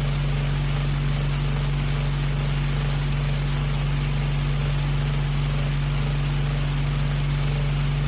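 Portable electric fan running at a steady speed: a constant motor hum under an even rush of air. A sharp click comes at the very end.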